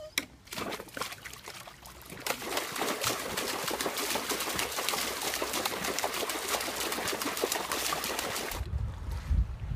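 A small dog splashing and thrashing in a plastic tub of water. A few lighter splashes come as it climbs in, then about two seconds in a steady, vigorous sloshing of water starts. This stops abruptly near the end and gives way to a low rumble.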